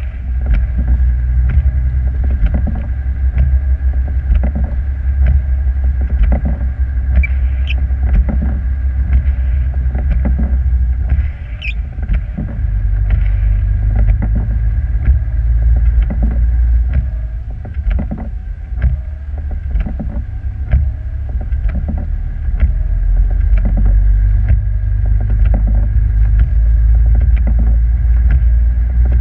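Steady low rumble of a vehicle driving, heard from inside the cab in a blizzard. Frequent irregular clicks and knocks and a faint steady whine sit over it. The rumble eases briefly a little before halfway and again later.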